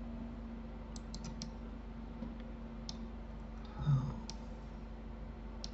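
Computer keyboard keys and mouse buttons clicking: a quick run of four clicks about a second in, then single clicks near three and four seconds. A short low thump just before the four-second mark is the loudest sound, over a faint steady hum.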